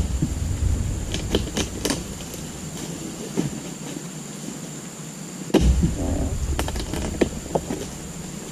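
Long-poled steel harvesting chisel jabbed into the fibrous base of an oil palm's fronds and fruit-bunch stalk: two heavy thuds, one at the start and one about five and a half seconds in, each with a low rumble after it, and scattered cracks and rustles of the stalk and fronds between.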